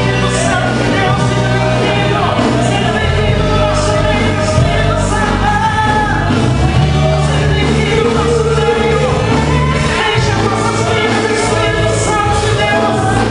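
Gospel worship band playing with sung vocals over bass and drums, with a steady beat and cymbal strokes.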